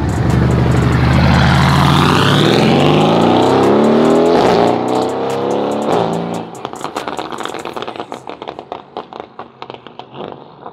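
Twin-turbocharged SRT 392 HEMI V8 under hard acceleration: the engine note rises steadily for about four and a half seconds, breaks at a shift, and climbs again. About six seconds in, the throttle comes off and the engine drops away into a run of rapid pops and crackles.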